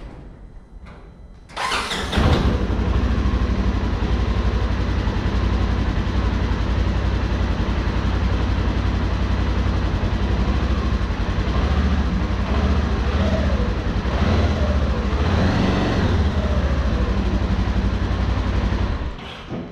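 Polaris Ranger side-by-side's engine cold-started: after a brief crank about a second and a half in it catches at once and runs at a steady idle, then is switched off just before the end.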